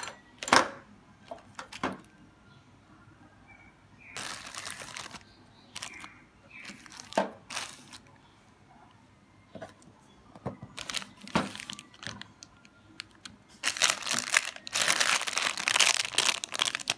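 Plastic bags holding sewing machine spare parts crinkling in short bursts as they are handled, with a longer, louder stretch of crinkling near the end. A few sharp clicks come in the first couple of seconds.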